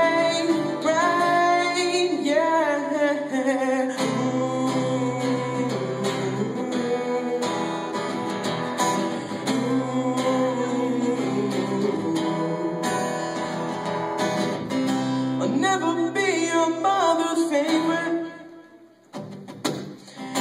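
Live song: a solo voice singing over guitar chords, with stretches where the guitar carries on alone. Near the end the music drops away almost to a pause, then starts again.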